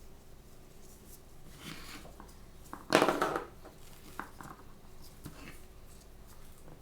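Toy blind-bag packaging being handled, with soft rustles and one loud, short rip-like crackle lasting about half a second, about three seconds in.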